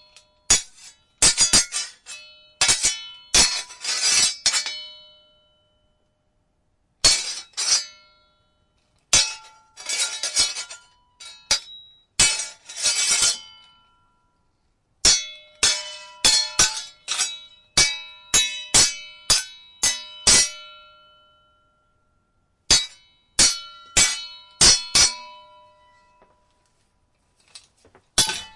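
Sword blades clashing, metal on metal: rapid flurries of sharp clangs, each with a short ringing tone, separated by pauses of a second or two.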